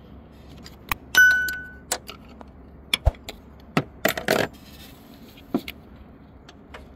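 Metal clinking of a 10 mm wrench working a VVT solenoid's mounting bolt in the engine bay: scattered clicks and knocks, with one bright ringing metallic clink about a second in and a quick cluster of knocks around four seconds in.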